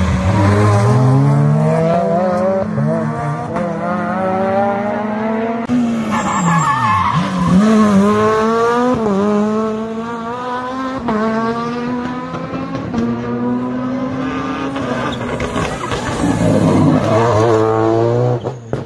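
Rally car engines revving hard as several cars pass in turn through a hairpin. The pitch drops sharply on braking and downshifting, then climbs in repeated steps through the gears as each car accelerates away.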